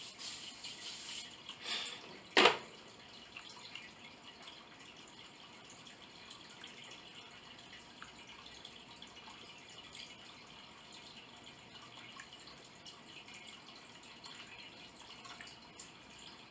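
Fork and plate noises while eating: a brief rustle at the start, one sharp knock about two seconds in, then faint small clicks and taps over quiet room tone.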